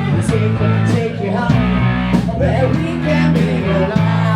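Rock band playing live: electric guitar, bass and a steady drum beat, with a singer coming in partway through.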